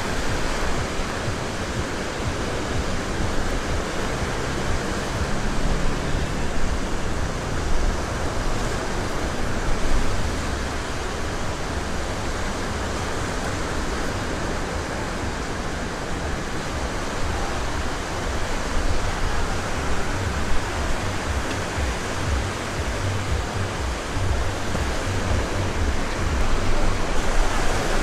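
Sea surf breaking and washing up onto a sandy beach: a steady rushing noise.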